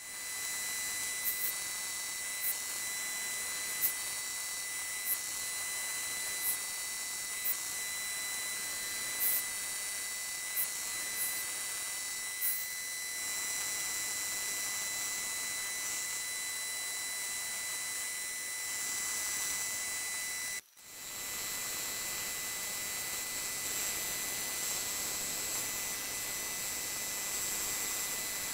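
Milling machine spindle running with an end mill cutting a pocket into a metal block: a steady high-pitched whine and hiss, with faint sharp ticks roughly once a second in the first half. It drops out briefly about 21 seconds in.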